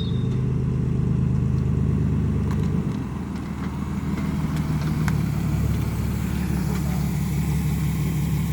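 Ford Granada running with a steady low drone, with a few faint, sharp creaks scattered through it. This is the creak from the right rear that came on while driving.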